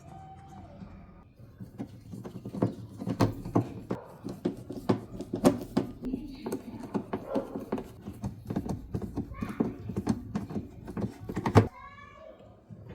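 Consul 11 kg washing machine in its spin cycle, knocking and clattering rapidly and irregularly, with a few louder bangs; this is the noise during the spin that is being shown as a problem. The clattering cuts off suddenly near the end.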